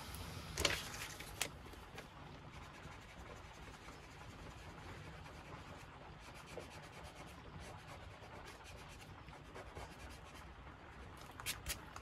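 Faint scratching of a pen drawing short lines on rough watercolour paper. A few louder clicks and rustles of a translucent sheet being handled come in the first second or so and again near the end.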